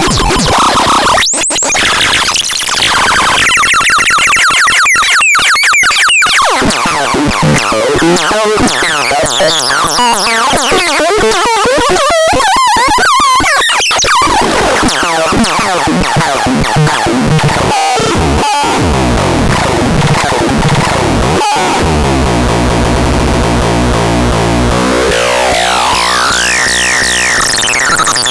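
SADO ĎASO s2 electronic sound device making harsh, chaotic synthesizer tones with wobbling pitch sweeps. The sound cuts out briefly several times, and near the end a stack of tones glides upward in steps and settles on a steady high pitch.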